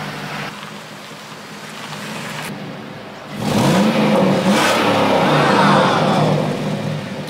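Chevrolet Avalanche's OHV V8 exhaust running at a steady idle, then revved several times about halfway through, the pitch rising and falling with each blip. The engine is running on its freshly replaced cylinder head, fitted to cure a misfire that made it shake.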